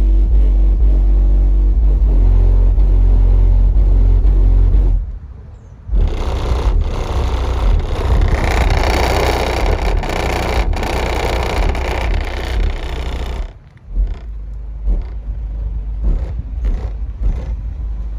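Bass-heavy music played loud through a single 10-inch subwoofer in a 4th-order bandpass enclosure, with very strong deep bass. The sound drops out briefly about five seconds in, comes back harsher and noisier, and turns quieter near the end.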